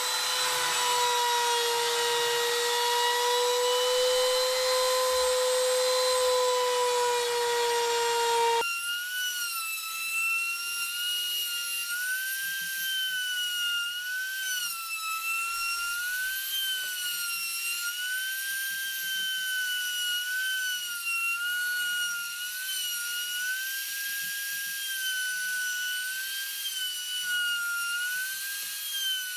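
Makita M373 trim router running and cutting wood: a steady high motor whine whose pitch wavers up and down as the bit takes the load. About nine seconds in it changes abruptly to a higher whine.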